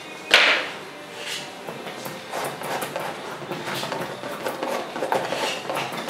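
Oil-painting tools at work: a sharp knock about a third of a second in, then a run of short, irregular scrapes and taps as oil paint is mixed and laid on.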